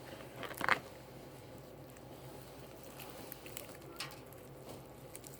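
Quiet eating and food-handling noises: a short rustle about half a second in, then a few soft scattered clicks.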